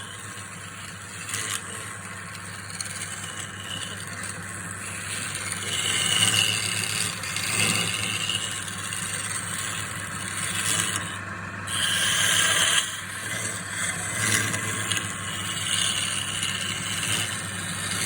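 Wood lathe running with a steady motor hum while a tool scrapes against the spinning wood in uneven passes, pausing briefly about 11 seconds in.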